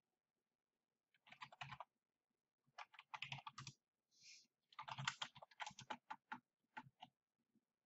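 Computer keyboard being typed on in three quick runs of keystrokes, with a brief soft hiss between the second and third runs.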